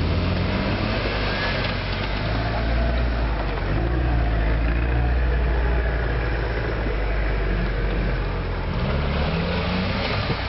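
Suzuki Vitara's engine running under load as the 4x4 crawls through a steep gully, its revs wavering with the throttle and rising briefly near the end.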